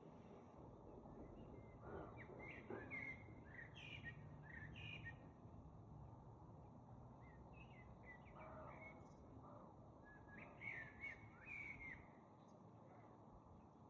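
Faint songbirds chirping in short, quick calls, in two bouts about two seconds in and again around ten seconds in, over a quiet background hiss.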